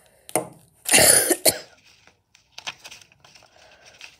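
A person coughs once, loudly, about a second in, after a brief catch of breath, followed by faint paper crackles.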